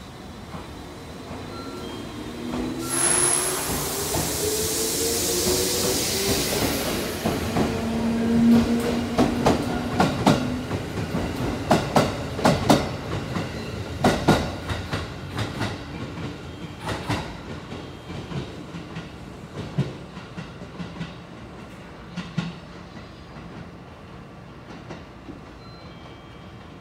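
JR 211 series 5000 electric multiple unit departing a platform: a burst of air hiss about three seconds in, then its field-addition-excitation traction motors whine up in pitch as it accelerates. The wheels then clatter over rail joints in quick clicks that thin out and fade as the train leaves.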